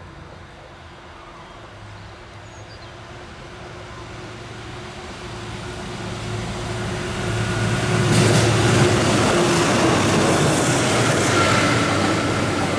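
Diesel engine of a Plasser track maintenance machine humming as it approaches along the rails, growing steadily louder. About eight seconds in it passes close by, and wheel and rail noise join the engine.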